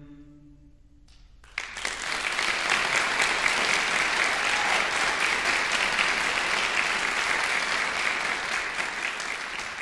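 A choir's last held chord fades out in the first second. About a second and a half in, an audience breaks into loud, steady applause that keeps going.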